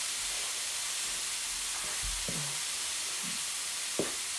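Sausage frying in a pan on the stove, a steady sizzle, with a soft click near the end.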